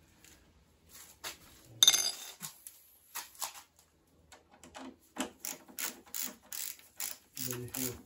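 Ratcheting screwdriver clicking steadily, about four clicks a second, as a body-panel screw is undone, with a single sharp metallic clink about two seconds in.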